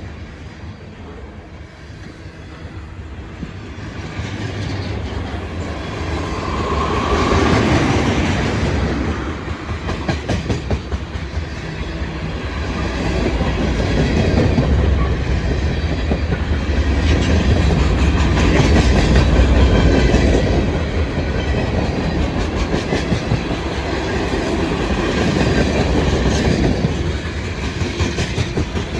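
Loaded trash cars of a freight train rolling past at track side, steel wheels clicking over the rail joints with a steady rumble that swells and eases as the cars go by.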